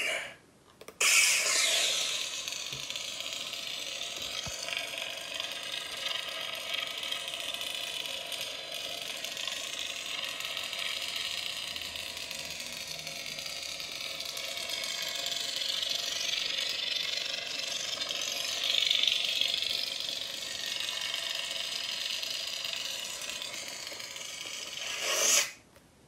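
Lightsaber sound board playing an unstable Kylo Ren–style blade sound: a loud ignition about a second in, then a steady unstable hum, and a retraction near the end that cuts off suddenly.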